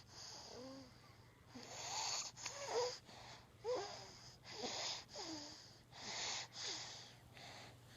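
Three-month-old baby snoring: short, wheezy breaths about once a second, several of them with small squeaky whistles.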